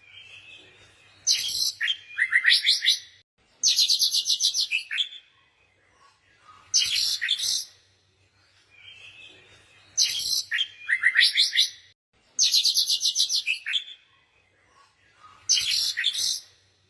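Songbirds chirping in short bursts of rapid, high trills, one phrase after another with brief pauses between them.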